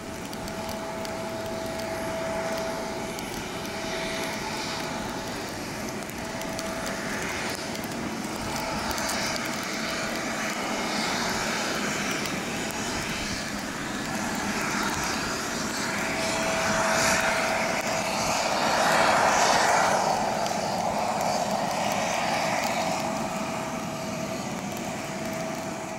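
Boeing 777-300ER under tow by an aircraft tug: a steady whine over a constant rushing hiss. It grows louder from about two-thirds of the way in, then eases off near the end.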